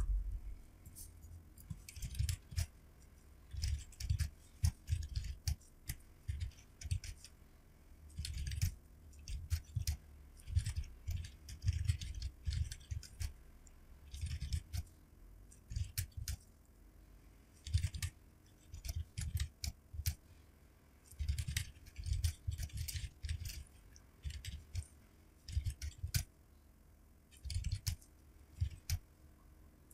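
Computer keyboard typing, sped up: quick clusters of key clicks, each with a soft thud, broken by short pauses.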